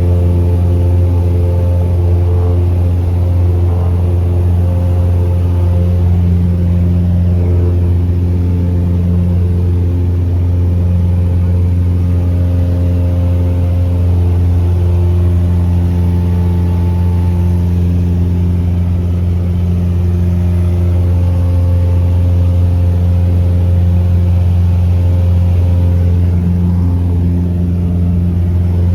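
Cessna 172's piston engine and propeller giving a steady, unchanging drone at constant power.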